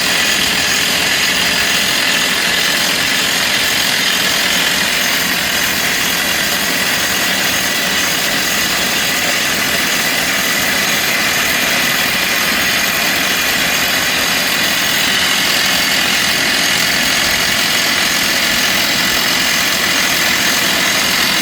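Construction machinery engine running steadily, a constant unchanging noise with no knocks or impacts.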